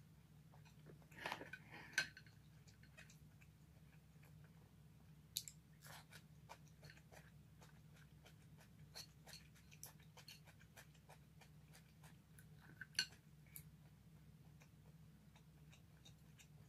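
Faint chewing and mouth sounds with many small scattered clicks of chopsticks against a plate, a few of them louder, over a steady low hum.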